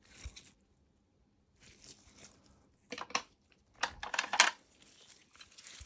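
Handling noises from graded coins in their plastic slabs and packaging being moved: a few separate rustles and clicks, the loudest about four seconds in.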